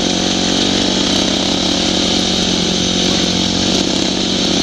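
Dirt bike engine running steadily at cruising speed along a sandy trail, heard close up from the rider, a constant engine drone with no change in pitch.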